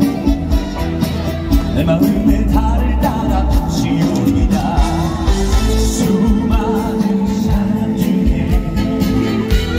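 Male singer singing a song live over amplified band accompaniment with a steady bass.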